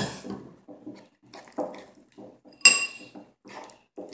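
Metal spoon stirring and scraping in a bowl of clear-glue slime with saline solution: irregular scrapes and taps, a knock at the start, and one loud ringing clink of the spoon against the bowl about two and a half seconds in.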